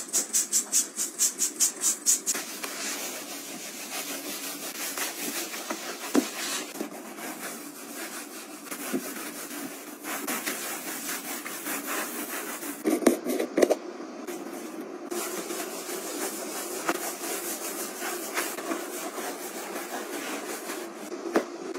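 Rubbing by hand on a surface: quick, even scrubbing strokes, about five a second, for the first couple of seconds, then continuous rubbing and handling noise with scattered clicks and a couple of louder knocks about halfway through.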